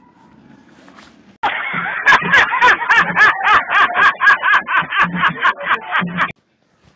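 A man laughing loudly in rapid, rhythmic bursts of about four a second, from a spliced-in video clip with thin, lo-fi sound. It starts abruptly about a second and a half in and cuts off sharply near the end, with only faint outdoor background before it.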